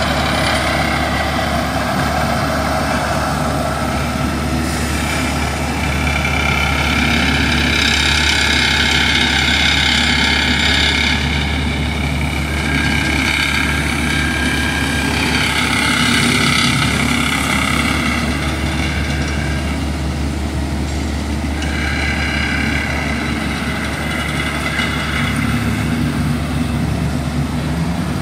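Bomag asphalt paver running steadily as it lays asphalt: a constant diesel hum with a higher whine that rises and falls in pitch.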